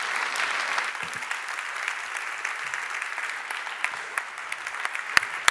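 Audience applauding, strongest at first and easing slightly. Two sharp knocks stand out near the end.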